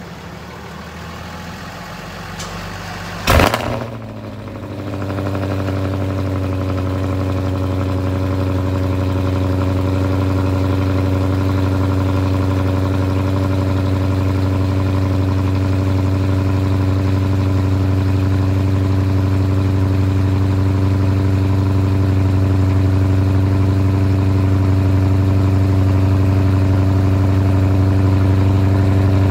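Chrysler 300 SRT8's HEMI V8 cold-starting at the exhaust tips: a short crank and a loud flare about three seconds in, then it settles into a steady idle.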